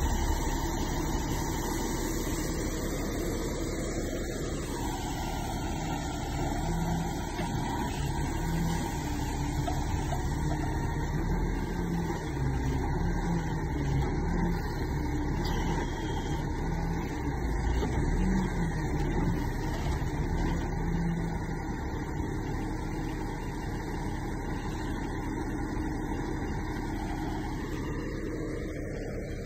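Truck engine running steadily under load to drive the hydraulics of a truck-mounted tree spade as its blades work around a tree. The engine's pitch wavers in the middle, and a whine rises and falls about four seconds in and again near the end.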